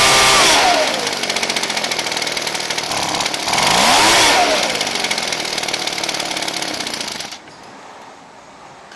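Ryobi two-stroke backpack blower engine dropping from high revs to a rough idle. It revs up and back down once about halfway, then dies about seven seconds in: the idle speed is set too low to keep it running.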